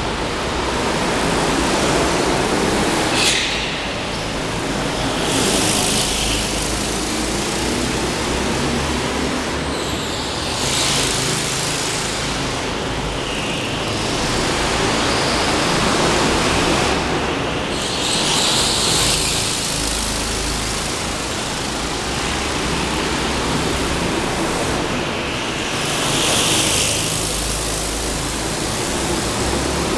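Go-kart engines running around an indoor track inside a large concrete hall, a steady drone that swells every few seconds as karts pass closer.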